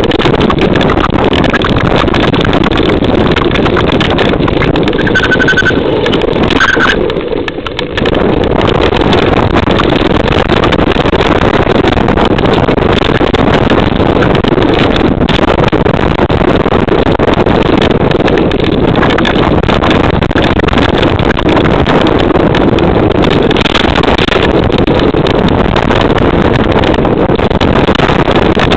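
Continuous loud rumble and wind buffeting on an onboard camera riding a mountain bike fast down a dirt trail, the tyres and rattling mount running without a break. The noise drops briefly for about a second some seven seconds in.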